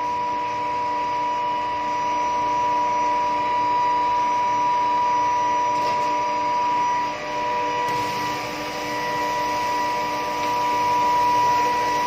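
Steady electrical whine of several held tones over a rough background noise, typical of an intermediate-frequency induction melting furnace running while molten metal is poured.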